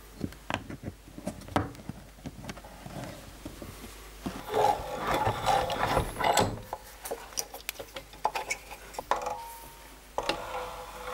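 Light clicks and taps of steel pins and wooden handle scales being fitted to a knife's steel liner. About halfway through, a louder stretch of rattling, grinding mechanical noise as a bench vise is cranked shut on the pinned handle scales, and more of it near the end.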